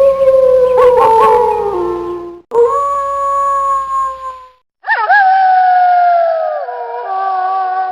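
Wolves howling: long, drawn-out howls, one with a second voice wavering over it, broken off abruptly twice, then several wolves howling together in a chorus of overlapping pitches that start with a quick rise and slide slowly down.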